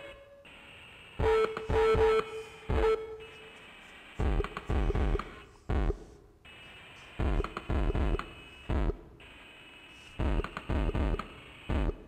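Synthstrom Deluge groovebox playing a looping electronic pattern of low drum hits and synth notes, likely with saturation distortion turned on. A cluster of hits comes about every three seconds, with quieter gaps between, and a held synth note sounds in the first cluster.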